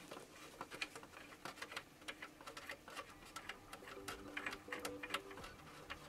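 Faint, irregular light ticks and drips, several a second, as the cap of a heating system's inline dirt filter is worked off and water with antifreeze starts dripping out.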